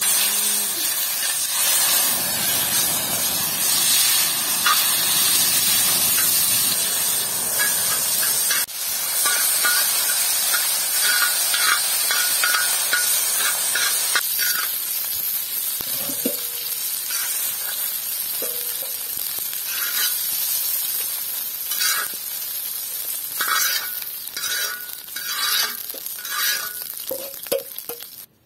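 Chicken breast pieces sizzling on a hot iron saj griddle over a wood fire, with a metal spatula scraping and tapping on the iron as they are stirred.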